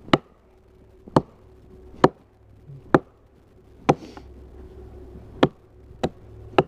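Gransfors Bruks small forest axe chopping into a small tree trunk with short one-handed swings: about eight sharp strikes, roughly one a second.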